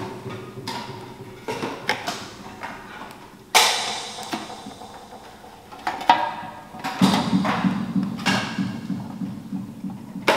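Soundscape of a waste sound installation: a string of sudden knocks and clatters, some with a short ringing tail. The loudest is a sharp crash about three and a half seconds in, and a low hum runs under the clatter from about seven seconds on.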